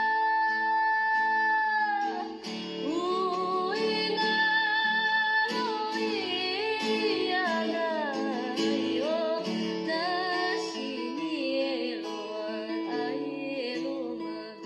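Background music: a sung or hummed melody over plucked guitar.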